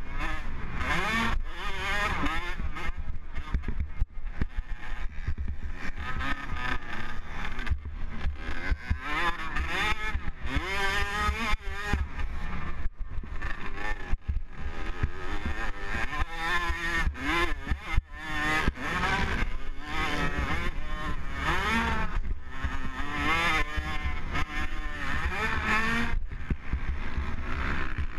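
Motocross dirt bike engine revving hard as the rider races, its pitch climbing and dropping over and over. Heavy wind buffeting on the helmet-mounted microphone runs under it.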